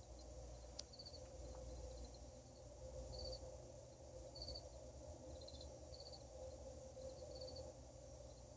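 Faint night ambience: crickets chirping in short high trills every second or so over a steady low hum of unknown origin.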